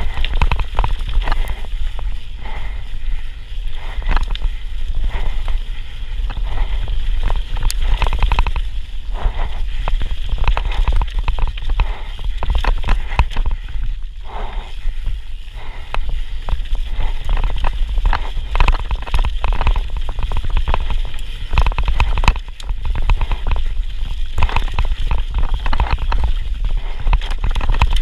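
Mountain bike descending a rough dirt singletrack: steady wind buffeting on the action-camera microphone over tyre noise on dirt. Frequent clicks and knocks as the bike rattles over roots and rocks.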